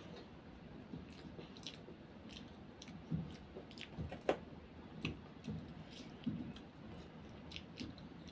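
A child chewing instant noodles and boiled egg, with irregular small mouth clicks and occasional light taps of a fork and spoon against a metal plate.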